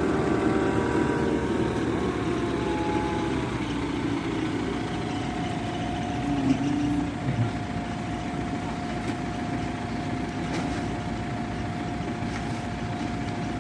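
Heavy vehicle engine idling with a steady low rumble; a thin steady whine joins about five seconds in, with a couple of brief knocks near the middle.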